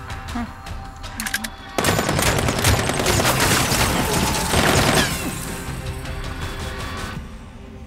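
A few sharp clicks, then a dense burst of rapid automatic gunfire begins suddenly about two seconds in, lasts about three seconds, and dies away. Film score music runs underneath.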